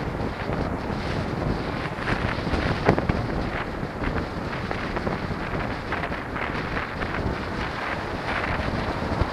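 Wind rushing over the microphone of a moving rider, a steady buffeting rush, with a short knock about three seconds in.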